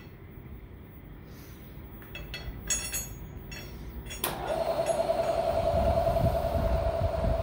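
A few light metallic clinks as the drawbar is handled, then about four seconds in the Bridgeport Series 1 mill's spindle motor switches on and runs with a steady hum.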